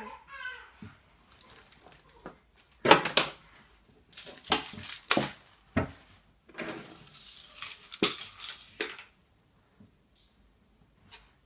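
A child's short high voice sliding down in pitch, then irregular clattering and rattling of small hard objects, like dishes or toys being handled, for several seconds before it stops.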